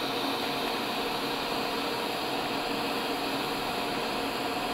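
TIG welding arc burning steadily as the torch is worked slowly along a fillet weld around a tank fitting, giving an even, unbroken hiss.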